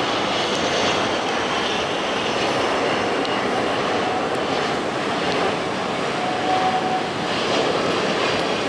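Airbus A380 on landing approach: the steady rushing noise of its four jet engines as the airliner passes low with gear down, with a faint whine appearing about six seconds in.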